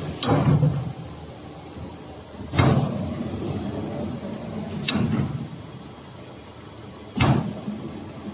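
Darin DRC-75 cereal bar cutting machine running: a steady hum broken by a sharp clack from the knife's cutting stroke, four times, a little over two seconds apart.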